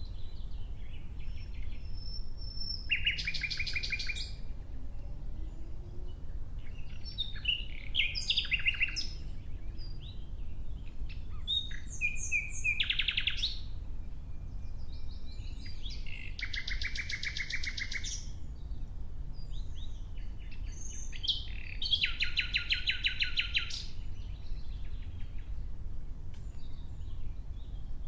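Nightingale singing in separate phrases a few seconds apart, several of them fast trills of rapidly repeated notes, with short pauses between phrases.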